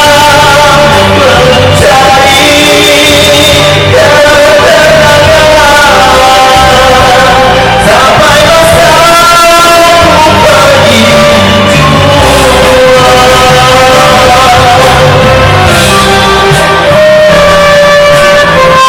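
Rock song: a sung lead line holding long notes over a full band backing.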